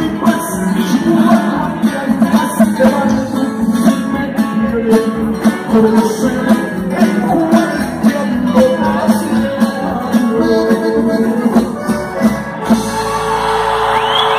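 Live norteño band playing through an arena sound system, with singing over guitar and percussion on a steady beat. Near the end the band drops out and crowd cheering takes over.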